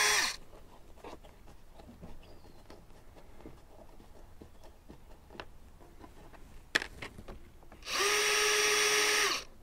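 DeWalt cordless drill/driver backing screws out of a rotted plywood door. One run winds down just after the start. Then come a few seconds of light clicks and a single sharp tap, and a second steady run of about a second and a half near the end.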